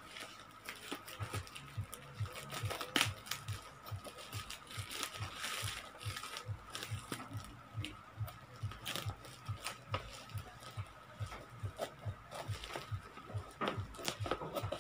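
Scissors snipping through plastic bubble-wrap packaging, with the plastic crinkling as it is handled: a run of short, sharp snips and rustles.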